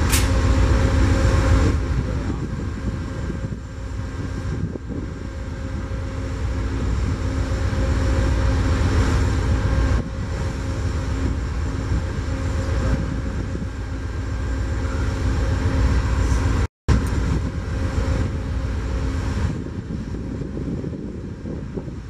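Amtrak GE P42DC Genesis diesel locomotive running steadily while its train stands at the platform, a deep engine rumble with a faint steady hum over it. About three quarters of the way through, the sound drops out for a split second.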